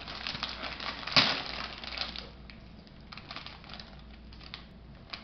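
Wrapping paper being torn and crinkled off a present by a small child: a quick run of rips and crackles with the loudest rip about a second in, then lighter rustling.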